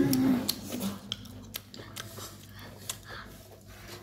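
People eating with their hands from a shared boiled pig's head: chewing, with scattered small clicks and taps.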